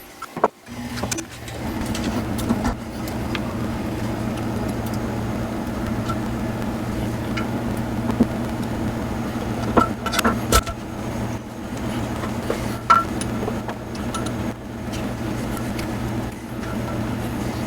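A steady low machine hum starts suddenly about a second in and runs on evenly, with scattered sharp metallic clicks and clinks of small parts and tools, the loudest a few near the middle.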